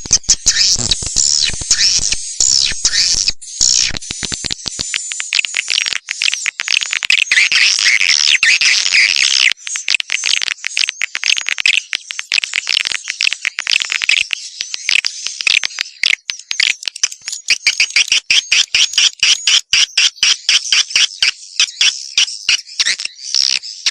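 Swiftlet call recording: dense, high twittering and chirping of swiftlets, played to lure wild swiftlets into a swiftlet house. In the second half it becomes a quick, even run of short chirps.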